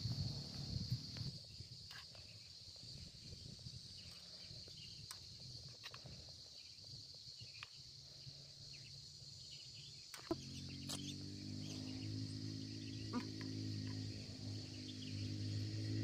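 Steady high-pitched drone of insects, with scattered light clicks and taps. About ten seconds in, a low steady hum of several tones starts and grows louder.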